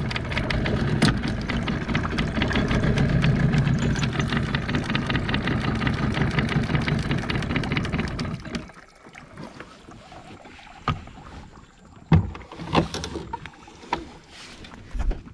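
Small outboard motor running steadily, then shut off about eight and a half seconds in. After that, a few sharp knocks in the boat.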